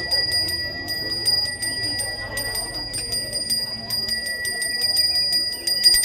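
A Balinese priest's hand bell (genta) is rung continuously. The clapper strikes rapidly, about six times a second, and the bell gives a steady, high, ringing tone.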